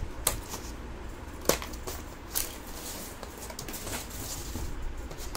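Plastic packing straps being cut and pulled off a cardboard-wrapped cast-iron sewing machine stand: a few sharp snaps and clicks, the loudest about a second and a half in.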